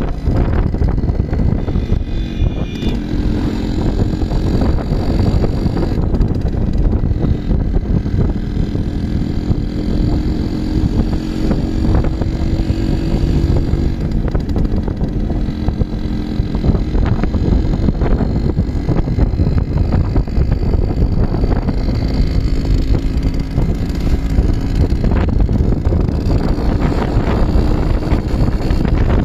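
Yamaha RX100's two-stroke single-cylinder engine running as the bike is ridden, its note rising and falling with the throttle.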